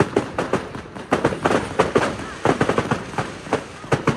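Fireworks display: a rapid barrage of aerial shells bursting overhead, sharp bangs and crackles overlapping at about half a dozen a second.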